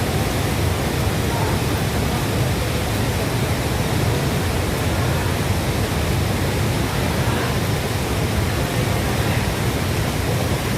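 Waterfall in heavy flow after rain, a steady loud roar of falling water.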